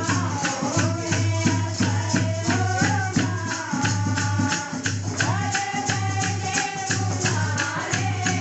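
Devotional kirtan music: one voice sings a gliding melody over a fast, steady beat of rattling hand percussion and a low, steady drone.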